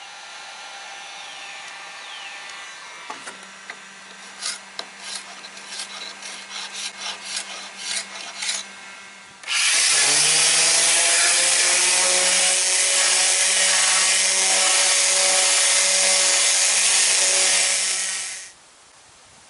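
A heat gun runs with a steady hum while a scraper takes softened old varnish off a wooden canoe thwart in a quick run of scrapes. About ten seconds in, an electric palm sander starts up loud, runs steadily sanding the bare wood, and cuts off near the end.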